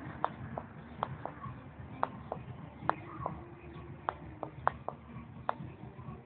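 Irregular sharp clicks or taps, about one or two a second, over a low steady background rumble.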